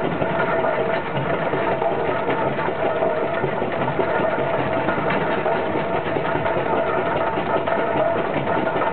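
1870 Fowler steam ploughing engine running along the road, heard from its footplate: a steady, rapid mechanical clatter of the engine's motion and gearing, with a constant tone under it.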